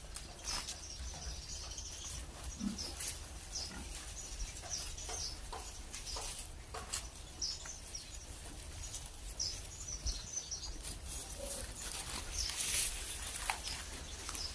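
Pigs feeding on thrown water spinach: scattered crunching and rustling, with a couple of short grunts.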